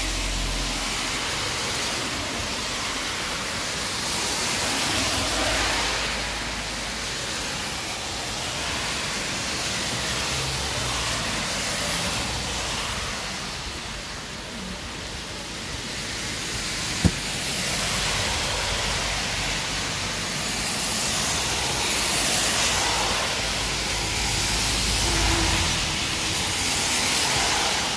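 Heavy rain pouring onto a wet road, a steady hiss, swelling now and then as cars pass with tyres hissing on the wet asphalt. A single sharp click about 17 seconds in.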